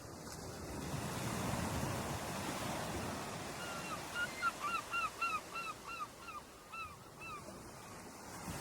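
Ocean waves washing on the shore, the surf swelling over the first second or two. In the middle, a bird gives a run of about a dozen short, falling calls in quick succession.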